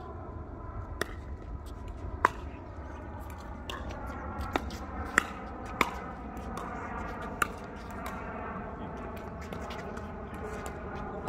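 Pickleball rally: about six sharp pops of the hard plastic ball struck by paddles and bouncing on the court, spaced irregularly, over a steady low rumble.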